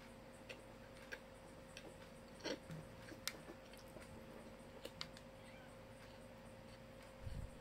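Faint eating sounds: scattered small clicks and smacks of chewing and of fingers picking rice and chicken off a plate, with a dull thump near the end. A steady faint hum runs underneath.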